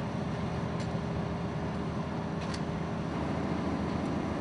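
Steady low rumble of idling vehicle engines, with a couple of faint clicks.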